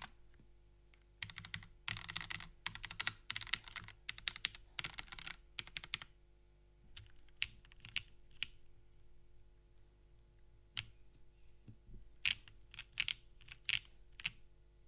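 Typing on a Constance TKL mechanical keyboard with lubed Cherry MX Black linear switches in a top-mounted aluminium plate with no foam, under GMK keycaps. Several seconds of fast, continuous typing give way to slower, separate keystrokes and short runs of a few keys.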